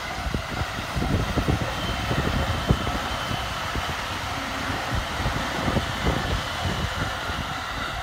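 JR E231 series electric commuter train passing close by at speed, its wheels knocking irregularly over the rail joints at the level crossing, with one sharp knock a little under three seconds in. The crossing's warning bell rings steadily behind it.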